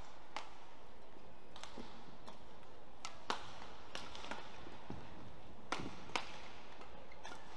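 Badminton rally: a string of sharp racket strikes on the shuttlecock, roughly one every half second to a second, over steady arena background noise.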